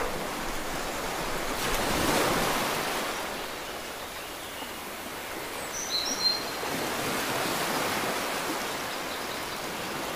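Shallow river water rushing over rocks in a steady noisy wash, a little louder about two seconds in. Two or three brief high chirps come about six seconds in.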